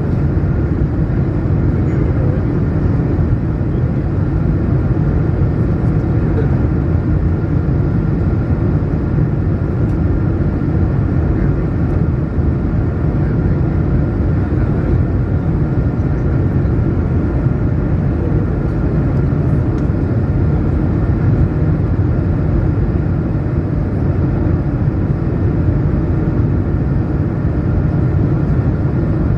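Airbus A220-100 cabin noise in flight: a steady low rush of airflow and engine noise with a faint steady whine, unchanging throughout.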